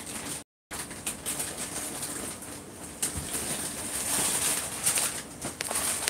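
Close crunching and chewing of crisp puri shells, with scattered small clicks; the sound cuts out completely for a moment about half a second in.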